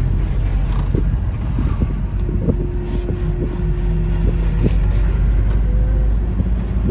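Engine and road noise of a moving vehicle heard from inside the cabin: a steady low rumble with scattered small knocks and rattles.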